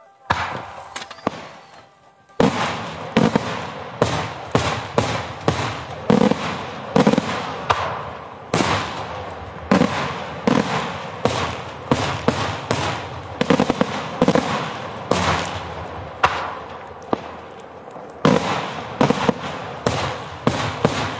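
Daytime display fireworks, the smoke-and-report shells of an Italian sparata diurna. There is one bang just after the start, then from about two seconds in a dense, continuous barrage of loud bangs and crackling reports.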